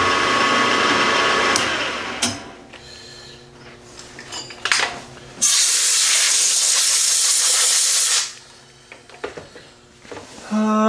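Milling machine running with an end mill cutting a set-screw flat in a metal sleeve, then stopping about two seconds in. A few light clicks follow, then a steady hiss for nearly three seconds around the middle.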